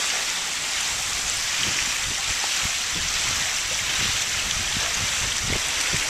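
Steady rush of running water, a hiss-like wash with irregular low thuds underneath.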